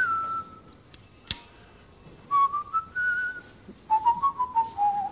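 A person whistling a short tune of a few notes, with a sharp click about a second in.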